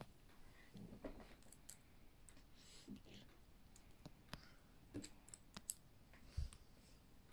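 Faint, irregular clicks of plastic LEGO pieces being handled and pressed together during building.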